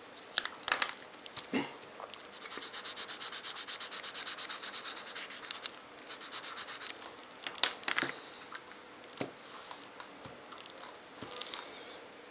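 Felt-tip marker scribbling rapidly on paper while colouring in: a fast back-and-forth scratching for a few seconds, with scattered sharp clicks and taps as the markers are handled.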